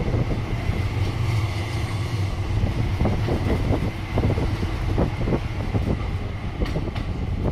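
SGP-Lohner E1 tram running along street track, heard from inside the car: a steady low rumble with irregular knocks and rattles from the wheels and body, and a faint steady high whine.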